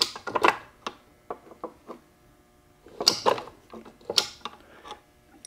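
Hand tools clicking and clattering against the cast-iron case of a Ford Toploader 4-speed transmission. The sound comes in several short bunches, with a quiet pause in the middle.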